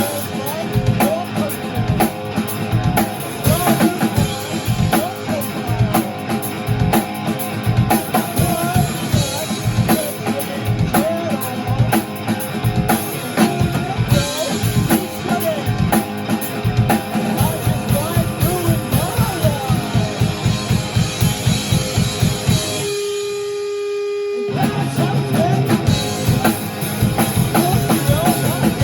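Rock music with a driving drum kit and guitar. About 23 seconds in the band drops out for a moment, leaving a single held note, then the drums and guitar come back in.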